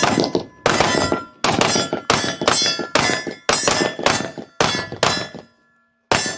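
Rapid string of gunshots at a range, about two a second, each followed by a metallic ringing, with a brief pause about five and a half seconds in before another shot.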